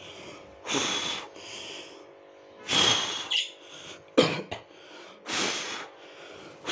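A person blowing hard into a Persian cat's fur in three short breaths about two seconds apart, to part the coat. A sharp click sounds just after four seconds in.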